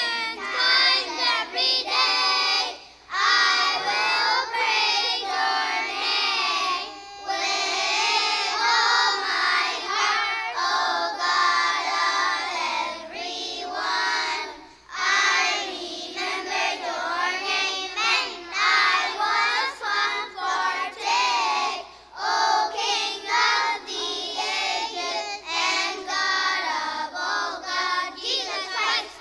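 A group of young children singing a hymn together, in phrases with brief breaks between them.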